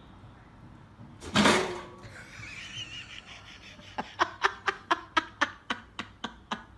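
A person laughing in a quick, even run of about a dozen short bursts, about four a second, over the second half. Earlier, about a second in, there is a brief loud burst of noise.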